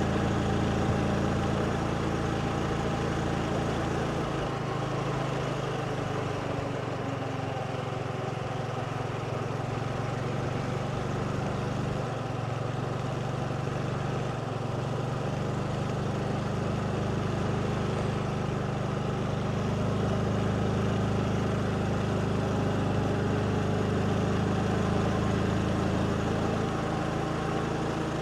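Motorbike engine running while riding, a steady engine note whose pitch shifts a little now and then with the throttle.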